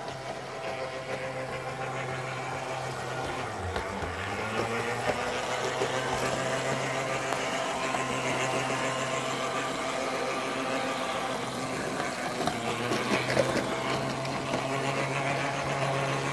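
Model weed-killing train, a small draisine hauling wagons, running along a model railway: a steady hum with a few clicks.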